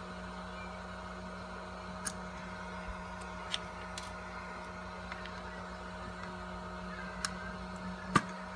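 Small sharp clicks of metal forceps picking the jumpers off the pin headers under a stepper-driver socket, about five of them with the loudest near the end, over the steady hum of the powered 3D printer's electronics.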